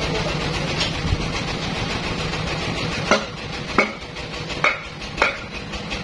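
Band sawmill machinery running with a steady low hum that drops a little about three seconds in. Then come four sharp knocks, roughly half a second to a second apart, as a large log is shoved along the mill's steel carriage.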